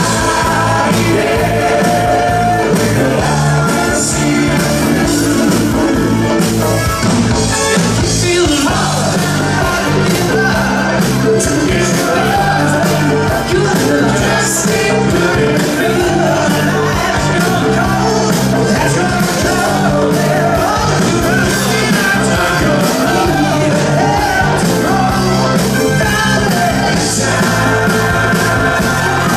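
Live rock band playing a song, a male lead singer over electric guitar and drums, recorded loud from within the audience.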